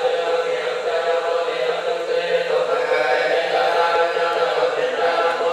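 Buddhist chanting: several voices holding a steady, droning chant on one pitch.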